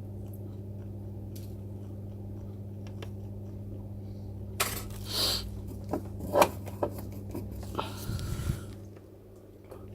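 Small metallic clicks and clinks, with a short rustle, as tools are handled on a microsoldering bench, clustered from about five to eight and a half seconds in, over a low steady electrical hum.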